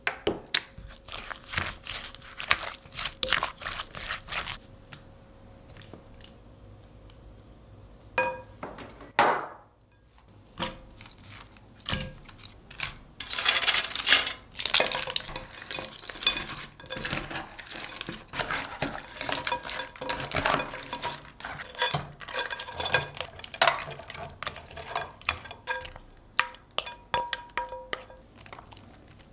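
Wooden spatula stirring and scraping chili-seasoned raw crab through a glass mixing bowl, with many short clinks and scrapes against the glass. The handling eases off for a few seconds in the first half, then picks up again.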